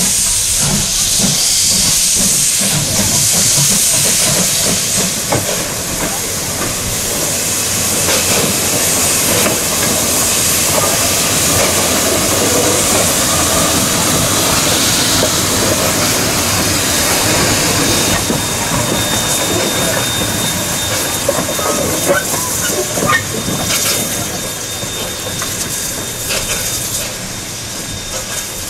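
Steam locomotive close by, hissing steam loudly throughout. A thin steady high tone joins about two-thirds of the way through.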